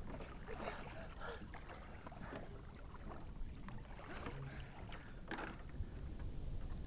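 Sea water splashing as a swimmer strokes up to a small boat and pulls herself out at its side, the heaviest splashes a little past halfway, over a low steady rumble.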